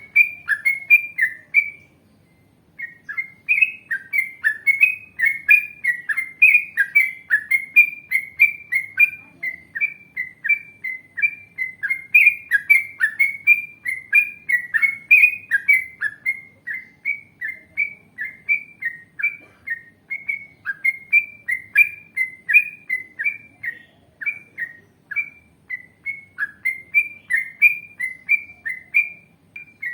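Yellow-vented bulbul singing a long, rapid run of short chirping notes, about three a second, with a brief pause about two seconds in and another near the end.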